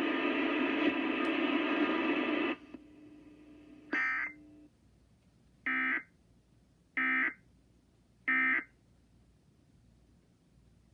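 Emergency Alert System broadcast audio: a steady buzzing tone that cuts off about two and a half seconds in, then four short screeching digital data bursts roughly a second apart. This is the EAS end-of-message code that closes the alert.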